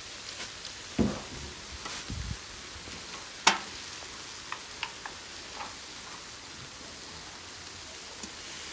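Pork skewers sizzling over a charcoal grill: a steady hiss with scattered small crackles. A few knocks and clinks stand out, the sharpest about three and a half seconds in, as a foil tray and a metal bowl of sauce are handled over the grill.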